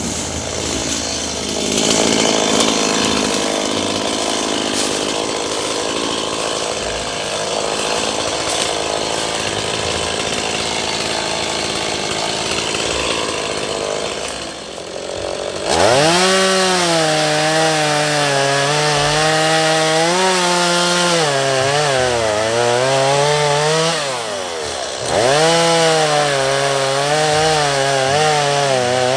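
Two-stroke chainsaw working. For about the first fifteen seconds it makes a dense, rasping noise. Then the engine runs at high revs with its pitch wavering, drops away briefly near the end and revs back up.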